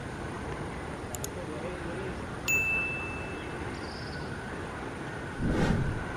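A single bright bell-like ding about two and a half seconds in, ringing out for about a second over a steady background hum, then a short low rumble near the end.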